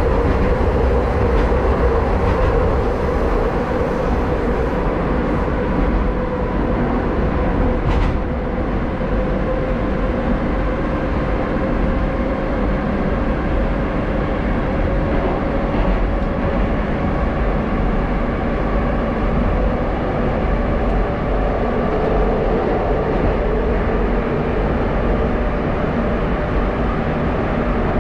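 Moscow metro 81-740.1 Rusich train running through a tunnel, heard from inside the car: a steady rumble of wheels on rails with a steady whine that drifts slightly in pitch. A single sharp click comes about eight seconds in.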